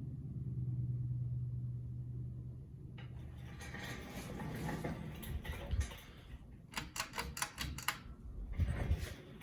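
Harbor Breeze Oakmont ceiling fan's motor giving a steady low hum, which stops about three seconds in as the speed changes, followed by a growing rush of air as the fan picks up speed. Near the end come two bursts of rapid rattling clicks.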